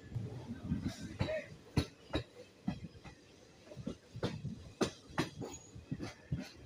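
Passenger train running, heard from inside the coach: an irregular run of sharp clacks and knocks from the wheels over rail joints and the carriage rattling, over a low rumble.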